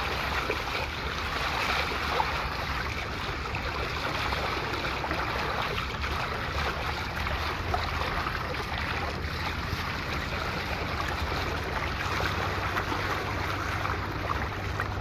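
Water rushing and splashing along the hull of a small sailing catamaran under way, a steady wash with a low wind rumble on the microphone.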